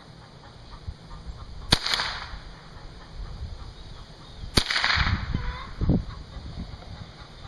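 Two shots from a Charter Arms AR-7 .22 Long Rifle semi-automatic rifle, each a sharp crack with a short ring after it, about three seconds apart. A couple of dull low thumps follow the second shot.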